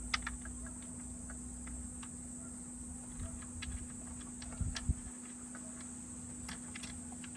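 Light scattered clicks and a couple of dull knocks from wiring and plastic connectors being handled behind a car's dashboard while a head-unit camera lead is fitted. A steady high-pitched hiss and a low hum run underneath.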